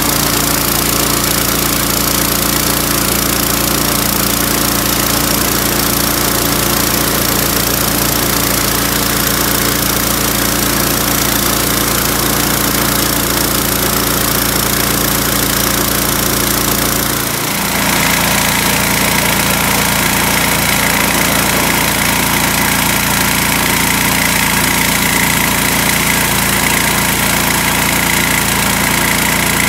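Simpson 3200 psi gas pressure washer running steadily, its small engine working the pump while the wand sprays. About halfway through the sound dips briefly and comes back with a slightly brighter, hissier tone.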